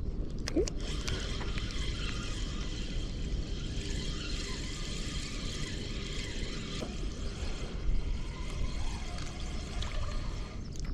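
Water rushing or pouring with a steady hiss that starts about a second in, over a constant low rumble.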